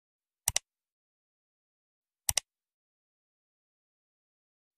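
Computer mouse-click sound effect, heard as two quick double clicks about two seconds apart, over otherwise dead silence.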